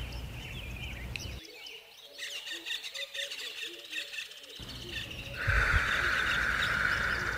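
Background nature sound of many birds chirping and calling. A steady hiss comes in about five seconds in.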